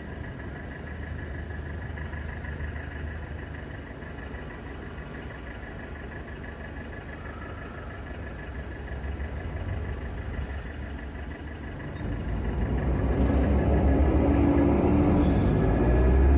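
Engines idling in slow stop-and-go city traffic, a steady low rumble heard from inside a car. About twelve seconds in a heavier engine grows much louder and rises in pitch as it pulls away.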